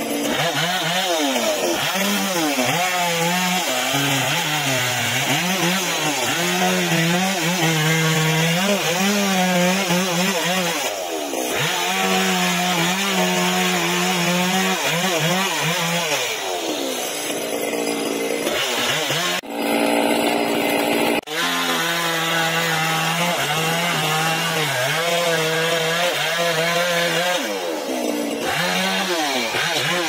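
Chainsaw running at high revs while cutting through a large log, its engine pitch dipping and recovering as the chain takes the load of the wood.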